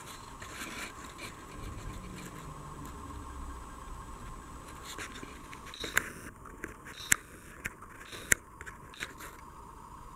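A faint steady hum, then five or six sharp clicks about a second apart in the second half.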